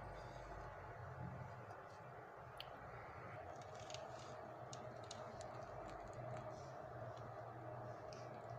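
Faint scattered light clicks and ticks over a steady low hum.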